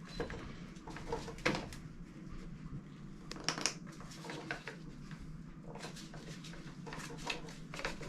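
Irregular light knocks, clicks and scrapes of things being handled at close range, over a steady low hum.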